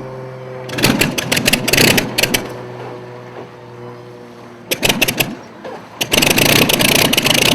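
Vintage hydroplane racing boat's engine running at a steady pitch. Loud bursts of rushing noise break in about a second in and again near five seconds, and a steady loud rush takes over from about six seconds.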